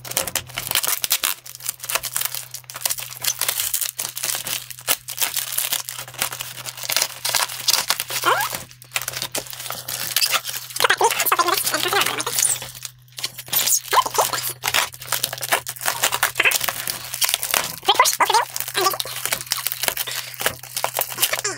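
A cardboard box wrapped in packing tape being torn open by hand: repeated ripping of cardboard and tape with crackling and crinkling, in uneven bursts.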